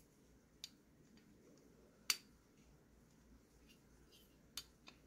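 A few short, sharp metal clicks over near silence from a folding knife and a small screwdriver being handled, as the scale screws are driven; the loudest click comes about two seconds in.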